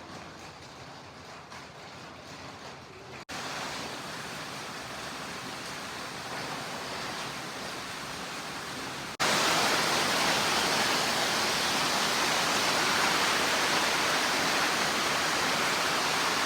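Heavy rain pouring down in a steady hiss during a storm, stepping suddenly louder twice, about three seconds in and again about nine seconds in.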